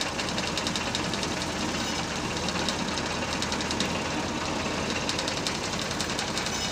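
Massey Ferguson 240 tractor's three-cylinder diesel engine running steadily close by, with a rapid knocking clatter.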